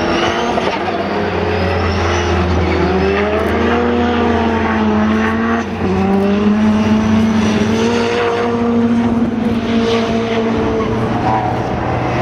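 Several saloon racing car engines running hard at once, their pitch climbing and falling as they work through the gears. There is a brief drop in sound a little before halfway, as at a gear change or lift.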